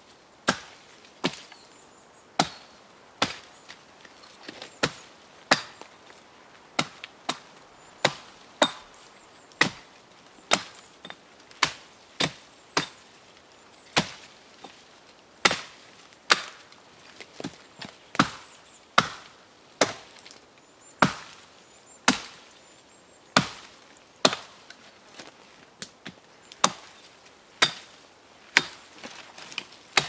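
Hatchet chopping into the dry branches of a dead conifer: a steady run of sharp wooden strikes, roughly one a second.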